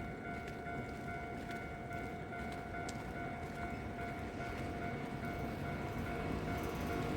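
Japanese level-crossing warning bell ringing at about two strokes a second, its tones held steady, while an approaching Kintetsu train's running noise grows louder near the end.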